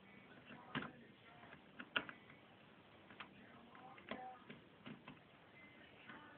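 Faint, irregular metallic clicks and light scratching of a double-diamond lock pick worked up and down against the pins of an old Ford Granada ignition lock barrel while tension is held on the plug, a few clicks ringing briefly.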